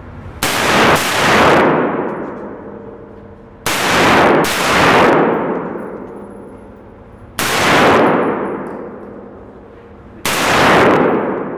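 Six gunshots fired at a 3-gun match: two quick pairs, then two single shots about three seconds apart, each shot followed by a long echoing ring.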